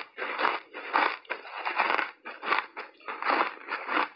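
Crunchy snowball ice coated in matcha powder being bitten and chewed, in a quick, even run of crunches, about two to three a second.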